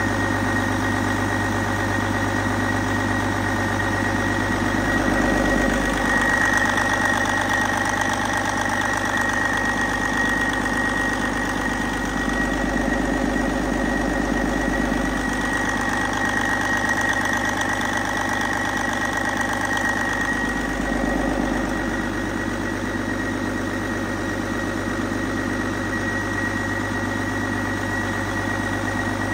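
A Detroit Diesel DD15 14.8-litre inline-six diesel engine idling steadily, with a thin high whine held over the engine note.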